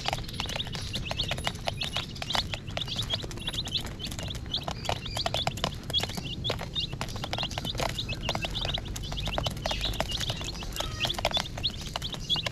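A group of baby chicks peeping constantly, many short high peeps overlapping several times a second. Under the peeps, quick irregular tapping of their beaks pecking at a plastic lid.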